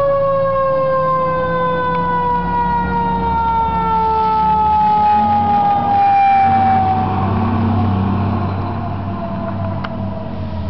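Fire engine siren wailing: a quick rise in pitch, then a long, slow fall over several seconds. Under it the truck's engine rumbles, loudest about six seconds in as the truck passes close.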